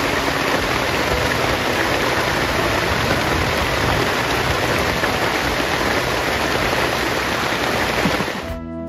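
Steady rain falling on a tarpaulin shelter, an even hiss. Near the end it cuts off and acoustic guitar music comes in.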